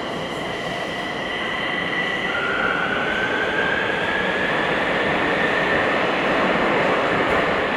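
Bucharest metro train running through the tunnel, heard from inside the passenger car: a steady rumble of wheels on the track. About two seconds in, a high whine sets in and slowly rises in pitch.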